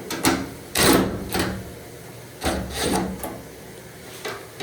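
Hands moving and handling a dryer's sheet-metal and plastic parts during disassembly: a series of short scrapes and knocks, the loudest about a second in.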